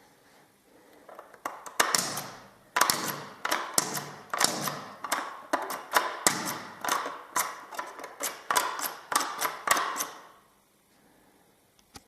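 A series of sharp clicks and knocks, about two a second, with rustling between them, starting a second and a half in and stopping near the end.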